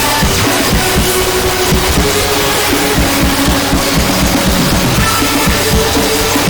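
Loud recorded music: fast, dense drumming under a thick wall of noisy distortion, with a few held notes.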